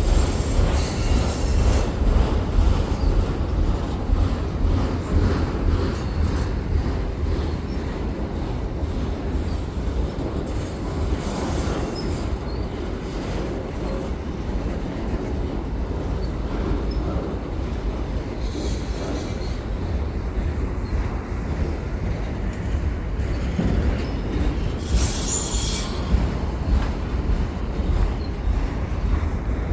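CPKC freight train's auto rack cars rolling past with a steady heavy rumble of wheels on rail. Brief high-pitched wheel squeals come several times.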